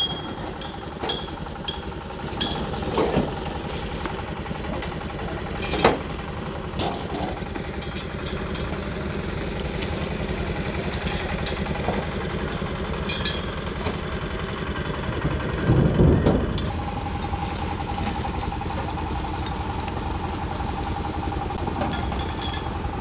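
An engine running steadily, with scattered sharp clinks and knocks and a heavier thump about sixteen seconds in. A steady whine joins it shortly after and holds to the end.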